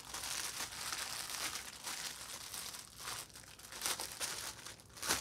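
Clear plastic packaging crinkling and rustling as it is handled, with sharper crackles about four seconds in and again near the end.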